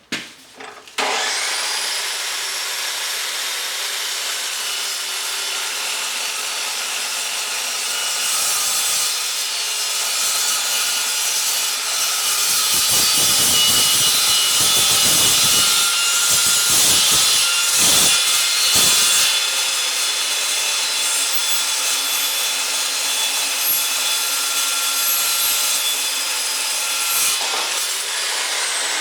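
DeWalt DW872 carbide-blade metal chop saw starting up about a second in and running with a high whine. Through the middle it cuts into metal stock, louder and grittier with spells of low grinding. It then runs free again, and its pitch begins to fall near the end as it winds down.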